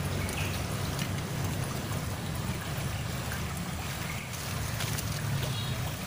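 Small stream of muddy water flowing over rocks and debris: a steady rushing.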